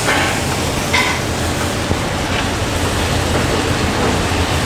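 Browned butter and lemon juice sizzling steadily in a hot sauté pan around a trout fillet, over a steady low hum.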